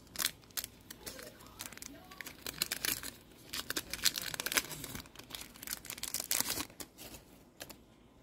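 KitKat chocolate bar wrapper being torn and peeled open by hand, in a run of sharp crinkling and tearing crackles. The crackles are loudest around the middle and again a little later, and die away near the end as the bar comes free.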